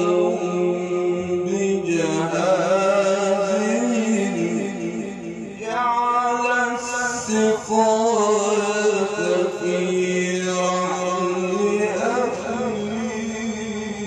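A male reciter chanting the Quran in a melodic style, holding long ornamented notes that glide up and down in pitch. There are brief breaths between phrases.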